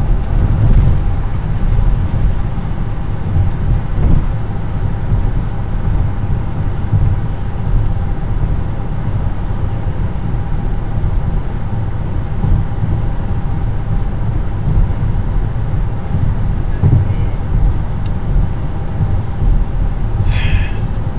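Car road noise at interstate speed: a steady tyre-and-wind rumble, heaviest in the low end, with a faint steady tone running through it. There are soft thumps about a second and about four seconds in.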